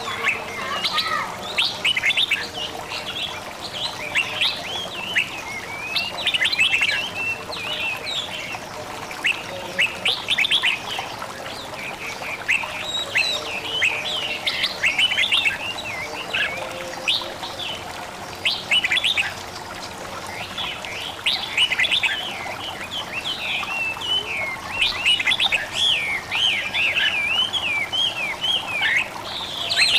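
Songbirds chirping and trilling continuously, many quick overlapping chirps, over a faint babbling of running water: a nature-sound soundtrack.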